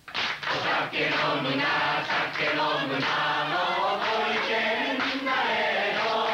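A group of people singing together in chorus, with hand clapping.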